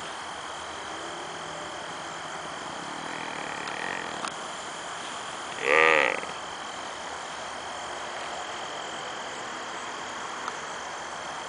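Tranquilized whitetail buck, deeply sedated, letting out one short pitched whine about halfway through, with a fainter sound a couple of seconds earlier.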